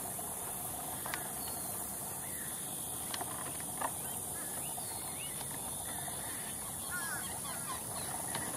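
Outdoor ambience: a steady hiss with an even high-pitched whine on top, and faint, distant bird chirps here and there, a small cluster of them about seven seconds in. A few faint clicks.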